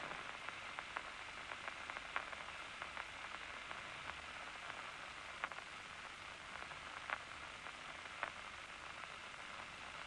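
Loudspeaker of an amplified nerve recording from a locust's nerve cord, giving a steady hiss with a few sharp clicks scattered through it. This is the resting state: no large nerve impulses, as the eye is not being stimulated.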